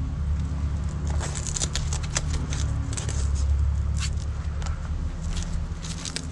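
Handling noise as a frame bag is strapped onto an e-bike's frame: a run of light clicks, scrapes and crackles from the bag and its straps, over a steady low rumble.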